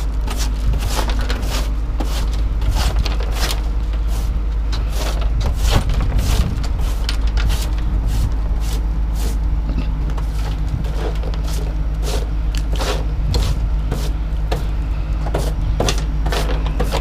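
A vehicle engine running steadily, with frequent irregular knocks and clatters over it.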